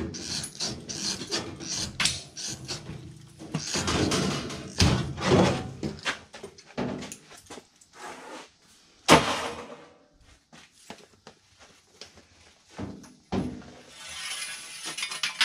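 Sheet-metal furnace panels and a cut strip of sheet metal being handled: bouts of scraping and rubbing of metal, a single sharp clank about nine seconds in, and scattered lighter knocks.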